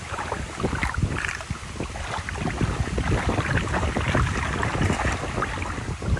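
Water splashing and sloshing in irregular strokes, with wind rumbling on the microphone.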